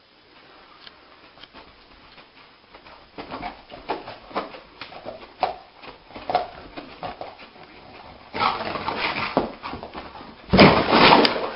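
A dog making short vocal sounds in irregular bursts from about three seconds in, followed by a louder, noisier stretch near the end.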